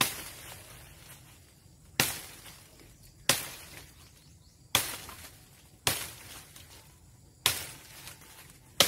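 Fallen tree branches cracking as they are snapped and pulled from the leaf litter: seven sharp snaps about one to one and a half seconds apart, each trailing off in a rustle of leaves.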